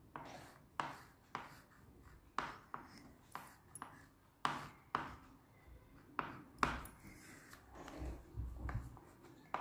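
A crayon rubbing in short strokes on paper on a table, about one or two strokes a second while a line is coloured in. A soft low rumble follows near the end.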